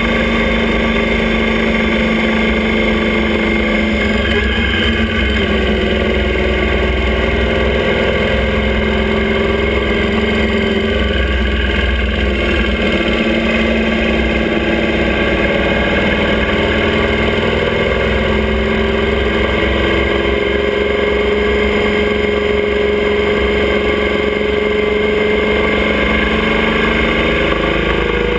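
Motorcycle engine of a sidecar outfit running steadily at road speed, its pitch drifting gently up and down as the throttle eases and opens, over a low rumble of wind and road.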